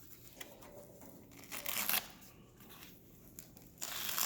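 Two short scratchy rustles of Kaizen foam being worked by hand during hot-knife cutting, about two seconds apart.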